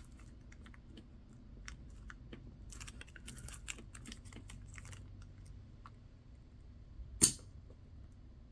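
Tweezers working on a small watch part under a loose plastic sheet: a run of faint ticks, scrapes and plastic crinkles, then one sharp snap about seven seconds in as the part springs loose against the plastic.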